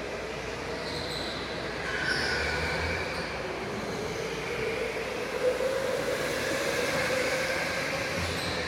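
Electric go-karts racing on an indoor track: a steady motor whine, with tyre squeal swelling about two seconds in.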